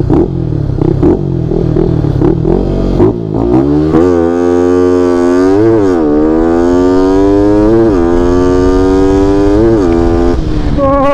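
Honda Winner 150 single-cylinder motorcycle engine fitted with a 62 mm big-bore kit. At first the throttle is blipped in quick pulses. From about three seconds in, the bike accelerates hard through the gears, its pitch climbing, dropping sharply at each upshift about every two seconds, and climbing again.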